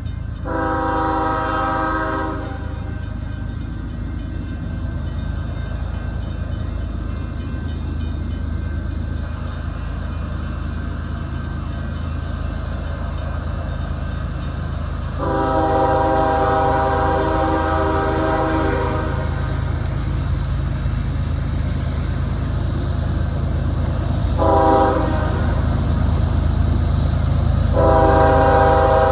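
CSX freight locomotive's air horn sounding four chord blasts over the steady low rumble of its diesel engines: a short blast about half a second in, a long one midway, a brief one, and another long one starting near the end.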